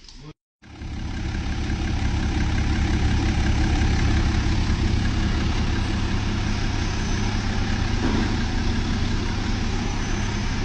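BMW N57 3.0-litre straight-six diesel engine idling steadily with a deep, even hum, running on freshly replaced timing chains.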